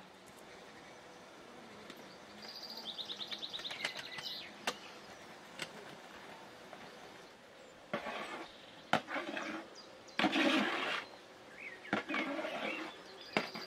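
Outdoor ambience with a quick run of high bird chirps, then sharp clinks and noisy scraping and clatter of metal teapots and a large pot lid being handled, loudest about two-thirds of the way through.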